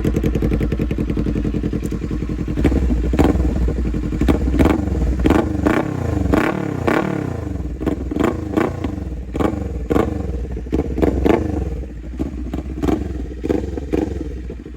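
Kawasaki Ninja 400's parallel-twin engine with an aftermarket exhaust, running steadily and then blipped over and over in quick rising-and-falling revs, about one or two a second. The exhaust is now properly mounted and no longer rattles.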